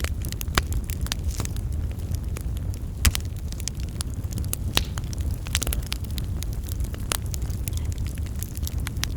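Wood fire in a fireplace crackling, with irregular sharp pops over a steady low rumble.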